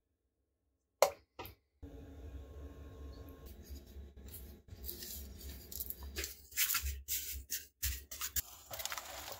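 Hands handling seed containers, paper towel and potting media: sharp clicks, rustling and scraping, with a low hum underneath. The busiest handling is in the last few seconds.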